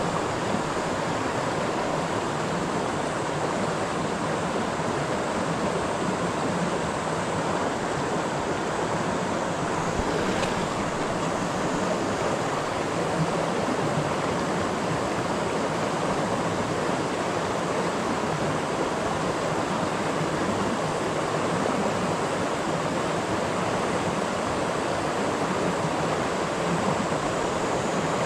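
Steady rushing of a river's current flowing over stones in shallow rapids.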